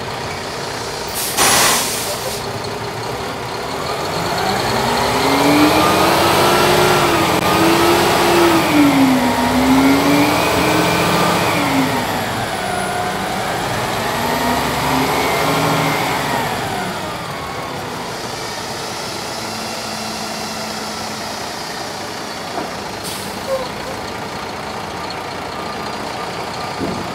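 Diesel engine of a tri-axle dump truck: a short hiss of air about a second and a half in, then the engine revs up, its speed rising and falling for over ten seconds as the hydraulic hoist raises the dump bed, then settles back to a steady idle, with another brief hiss of air later.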